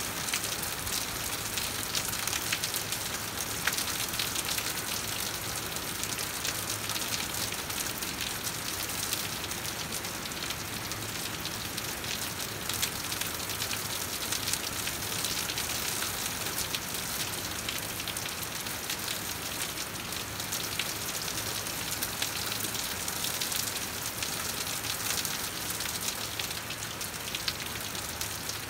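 Steady rain falling, a dense even hiss of drops with many sharp ticks of single drops striking close by.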